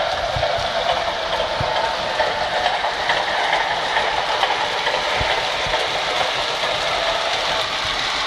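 MTH DCS model subway train running on three-rail O-gauge track: a steady hum and rattle of motor and wheels, with irregular soft clicks as the cars roll over the track joints.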